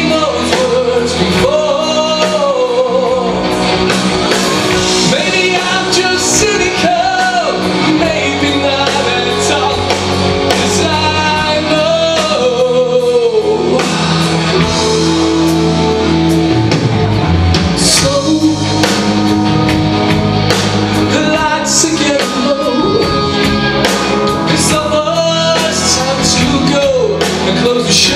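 Rock band playing with a singer: sung vocal line over guitar, bass and drums.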